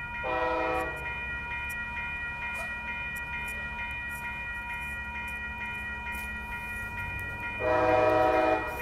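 Horn of an approaching Amtrak ALC-42 Charger locomotive, sounding two blasts for the grade crossing: a short one at the start and a longer one near the end. A grade-crossing warning bell rings steadily throughout.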